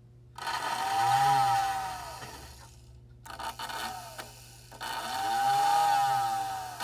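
Repaired American Flyer whistling billboard blowing its motor-driven whistle twice: a steady whistle tone with the motor winding up and running down, over an electrical hum. The first blast starts about half a second in and fades. After some scratchy noise, a second blast starts near the end. The whistle is working properly now.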